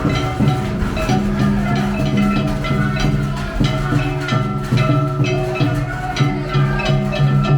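Danjiri-bayashi festival float music: a pitched melody carried over frequent, regular drum strokes.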